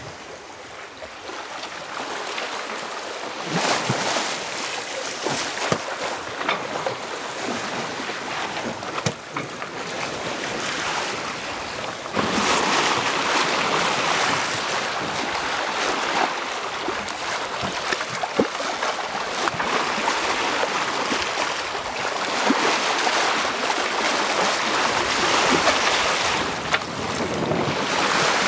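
Water rushing and splashing along the hull of a sailboat moving under sail, with wind buffeting the microphone and a few small knocks. The rush grows louder about twelve seconds in.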